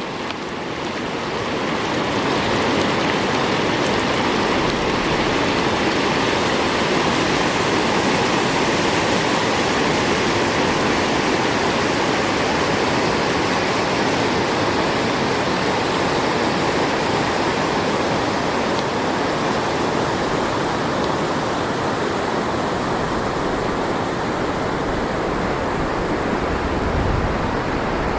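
Floodwater rushing down a creek in a steady, loud roar, fading in over the first couple of seconds. A short low rumble near the end.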